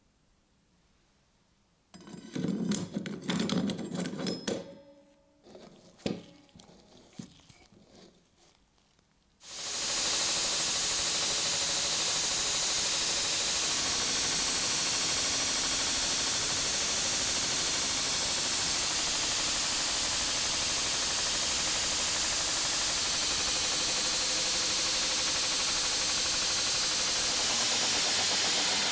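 Belt grinder grinding the steel edge of an old machete being reshaped into a knife: a loud, steady hiss of the abrasive belt on steel that starts suddenly about nine seconds in and keeps on without a break. Before it come a few seconds of irregular scraping with a few sharp clicks.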